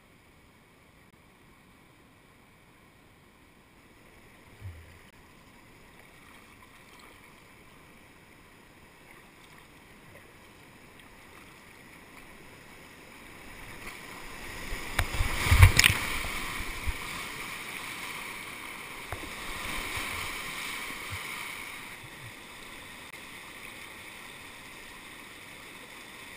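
River whitewater heard from a kayak: a faint rush that grows as the boat nears a ledge drop, then loud splashing with heavy thumps of water against the boat as it goes over, about halfway through. The noise swells once more and then settles into the steady rush of the rapids below. A single short knock comes a few seconds in.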